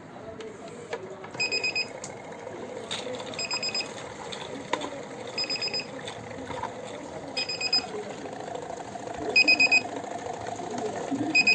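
Kent RO Grand+ water purifier sounding its service alert. Quick runs of about five high beeps repeat every two seconds. This is the reset-reminder alarm that comes due within a year even though the filters are fine.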